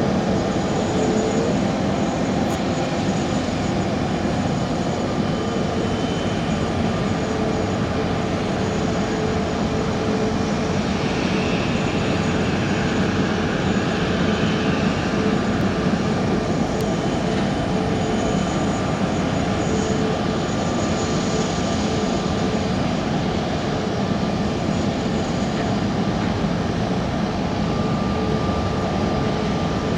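Boeing 787-8 airliner's turbines running steadily during pushback from the gate: a constant rush of noise with faint steady whining tones over it.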